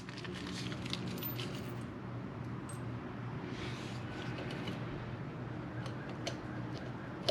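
Scattered light metallic clicks and rattles as a roller-chain master link is handled and worked into the bike chain, over a steady low background hum.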